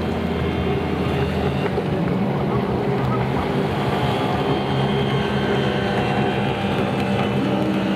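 Racing jet skis running at speed across the water, a steady engine note at even pitch with a hiss of spray.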